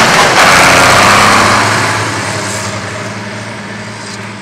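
Diesel engine of a harvest-time farm vehicle running loud as it passes close by, then fading steadily as it drives away.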